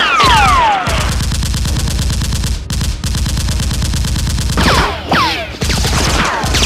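Rapid automatic gunfire sound effects, a fast stream of shots many per second, with falling whistles laid over it near the start and again about five seconds in. The firing breaks off briefly a few times.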